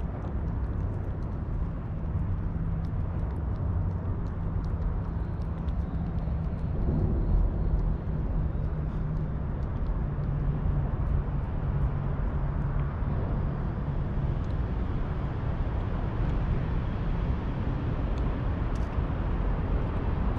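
Steady low rumble of distant city traffic with a low engine hum, briefly louder about seven seconds in. Faint light ticks sit above it as the cat licks.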